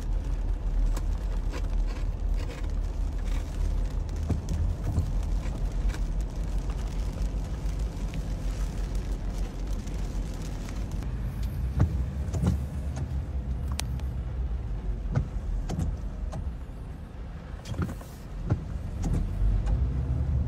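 A vehicle driving through floodwater in the rain, heard from inside the cab: a steady low rumble of engine and water under the tyres, with scattered sharp taps throughout.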